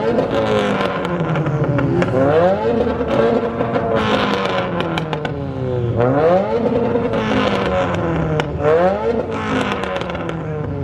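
A car engine is free-revved hard again and again, its pitch climbing quickly and dropping back about six times.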